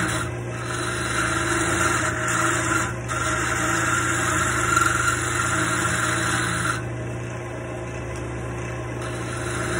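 Wood lathe running with a steady motor hum while a turning chisel cuts a spinning wooden dowel, a hiss of shaving wood. The cutting breaks off briefly twice, then stops for a couple of seconds about seven seconds in as the tool is lifted off, leaving only the lathe running, and starts again near the end.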